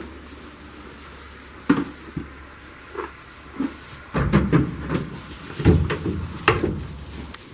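Goats moving about in a wooden stall, their hooves and bodies knocking against the wooden boards and gate: a few scattered knocks, then a busier clatter of knocks and dull thumps in the second half.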